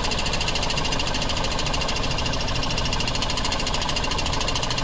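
2011 Jeep Wrangler's 3.8-litre V6 idling steadily while misfiring on one cylinder, whose ignition coil is getting no firing pulses.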